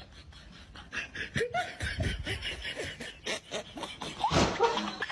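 A person laughing in rapid breathy snickers and giggles. The laughter is faint at first and grows louder about a second and a half in.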